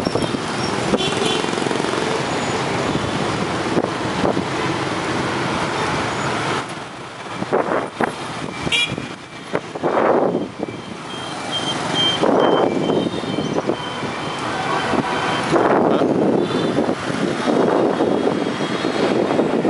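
Dense street traffic of motor scooters and cars passing close by, the engine noise swelling several times as vehicles go past. A few short high-pitched beeps sound about halfway through.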